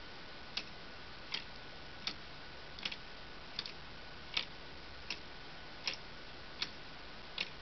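Lego clock escapement ticking: plastic parts click sharply as the escape wheel's teeth catch and release on the pallets. The ticks are steady and even, about one every three-quarters of a second, and some are doubled.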